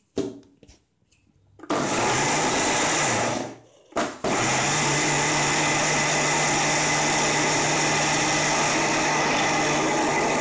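Electric mixer grinder (mixie) grinding soaked idli rice with water into a coarse batter. The motor starts about two seconds in, stops briefly near four seconds, then restarts and runs steadily.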